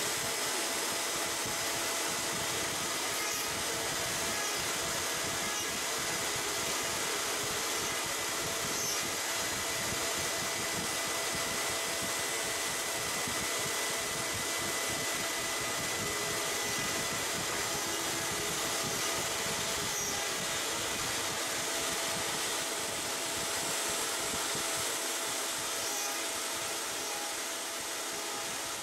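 A 1 kW Kress 1050 router spindle on an X-Carve CNC machine running at a steady high speed as it cuts holes into an MDF board: an even whine with a steady high tone over a rushing noise.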